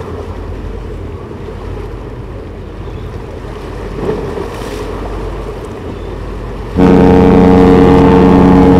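Harmony of the Seas cruise ship's horn sounds about two-thirds of the way in: a sudden, loud, deep, steady chord of several tones, held to the end. Before it, wind on the microphone and a low rumble.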